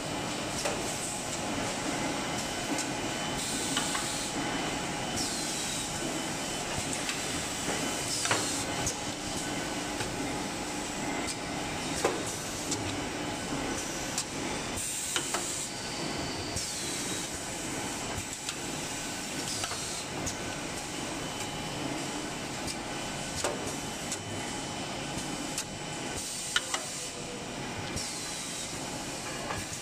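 Square air fryer paper liner forming machine running through its cycle: a steady mechanical noise broken every few seconds by short hisses of air that fall away, and sharp clicks of the forming press.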